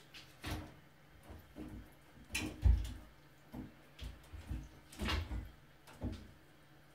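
Irregular knocks and bumps as a kitten's paws and body strike the top rail of a shower cabin while it scrambles round after its own tail. The loudest knock comes a little under three seconds in.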